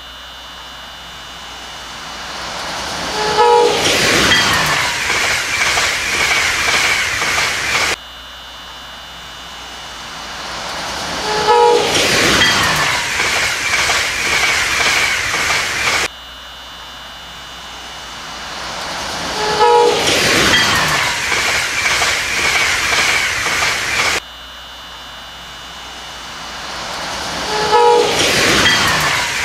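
The same short recording of a train passing, looped four times: each time a rumble swells, the horn gives a short blast, and the train rushes by with clattering wheels and a steady high squeal, then the sound cuts off abruptly and starts again.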